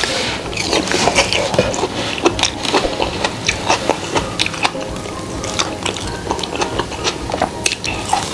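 Close-miked eating of crispy fried chicken: irregular crunches and wet chewing sounds, with fingers pulling the meat apart.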